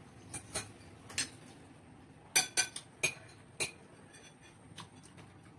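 Spoons and forks clinking against plates and stainless steel bowls while eating: about nine sharp clinks at irregular times, the loudest bunched together near the middle.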